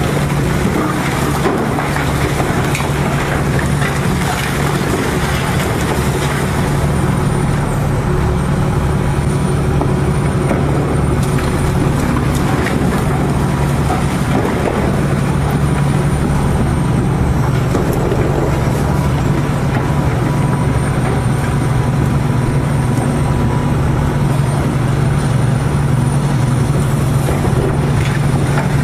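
Hitachi hydraulic excavator's diesel engine running steadily under load while it tears down a concrete apartment wall, with scattered crunching and clattering of breaking concrete and falling debris over the drone.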